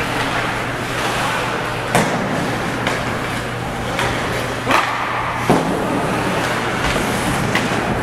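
Ice hockey arena during play: a steady hum under a haze of crowd and rink noise, with several sharp clacks of sticks and puck.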